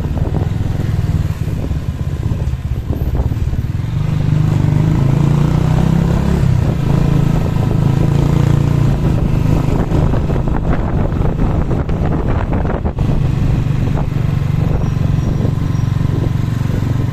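Motorcycle engine running steadily while riding along a street, slightly louder from about four seconds in, with a brief dip near the end.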